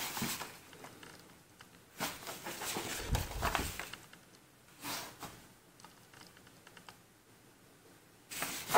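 Old paper rustling and crinkling in a few short bursts as a folded 1940s typewritten newsletter is opened out and handled, with quiet gaps between.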